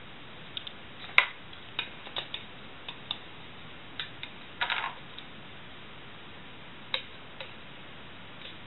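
Scattered sharp clicks and taps of a plastic jar and its red screw-on lid being handled: the lid twisted off and later set down on the wooden table. The loudest click comes about a second in, with a quick cluster near the middle and one more near the end, over a steady hiss.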